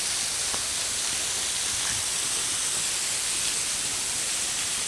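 Steady rush of a small waterfall, Bridal Veil Falls, pouring down close by as an even hiss with no change.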